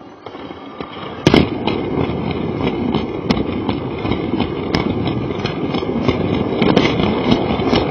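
Lego toy train running on its plastic track, heard close up from a camera riding on it: a steady motor and wheel noise that starts up and builds over the first second, with scattered sharp clicks throughout.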